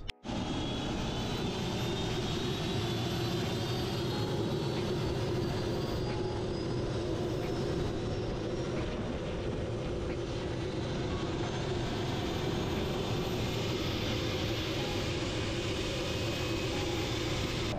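MD 500E helicopter running on the ground: the steady sound of its turboshaft engine and rotor, with a thin high turbine whine drifting slowly lower in pitch.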